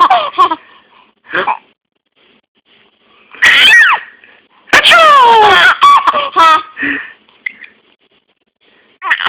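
A baby laughing at a sneeze noise, in a few separate bursts. The longest and loudest runs from about five to six and a half seconds in and ends in quick, choppy laugh pulses.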